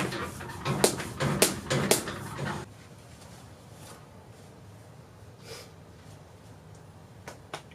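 Turbocharged Hyundai Genesis Coupe engine blipped a few times, each blip followed by a short sharp hiss from the aftermarket Turbo XS blow-off valve venting boost. Three hisses, then the sound cuts off about two and a half seconds in, leaving faint background and a couple of small clicks near the end.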